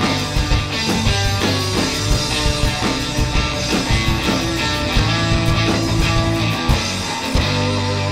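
Rock band playing live with guitars, bass and drums. About seven seconds in, the drums stop and a final chord rings on at the close of the song.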